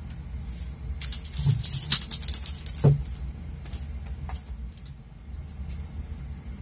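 Foil seasoning sachets crinkling and rustling in the hand as dried vegetable flakes are shaken out onto a plate, with two soft taps, about a second and a half in and near three seconds. Under it runs the steady low rumble of a portable gas stove burner with noodles boiling on it.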